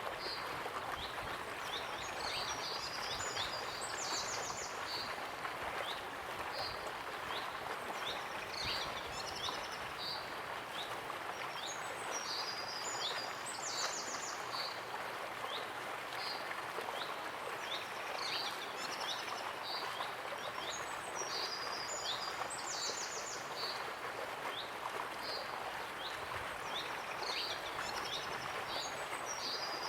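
Waterfall rushing steadily, with a songbird singing short, high, repeated phrases every few seconds over it.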